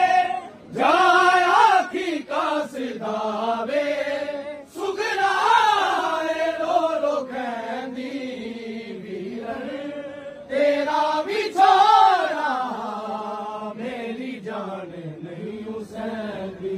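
Men's voices chanting a Punjabi noha, a Shia mourning lament, together in a slow melodic line that bends up and down with long held notes.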